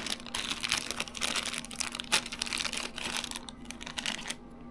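Clear plastic bag crinkling and rustling as small parts are handled and pulled out of it, with many small sharp crackles; it quietens shortly before the end. A faint steady hum runs underneath.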